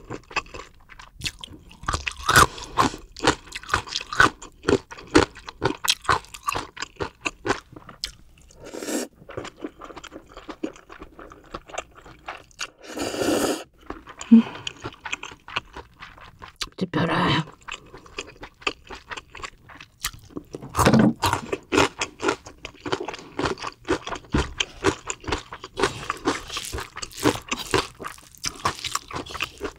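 Close-miked chewing of crisp food, a long run of quick crunches, broken by a few longer, louder noises.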